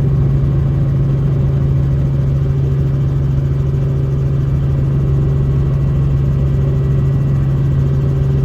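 An engine running steadily at a constant, low pitch.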